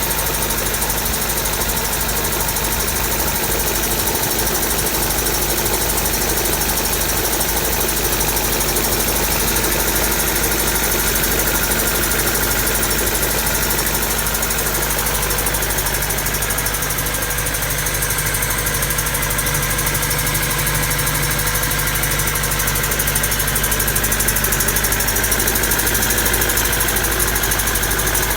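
Honda Civic's D16 "mini-me" four-cylinder (D16Y7 block with D16Y8 head) running at a steady, rough idle. The owner thinks it has spun a bearing from too much nitrous.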